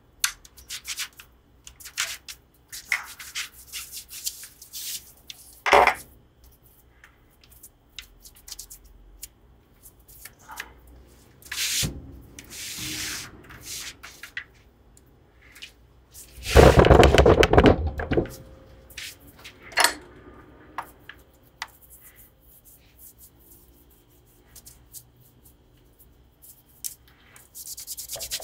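Cloth wiping dust off a Les Paul-style electric guitar's headstock, neck and body: many short rubbing and scraping strokes with a few knocks from handling. A louder scuffing stretch of about two seconds comes a little past the middle.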